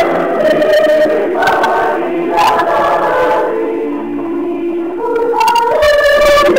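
Mixed church choir of men's and women's voices singing a cappella, dropping softer in the middle and swelling louder again about five seconds in.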